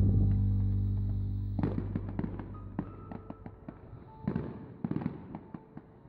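Fireworks crackling and popping in rapid clusters: a first flurry after about a second and a half, then two denser bursts of crackle later on. Strummed guitar music fades out during the first second and a half.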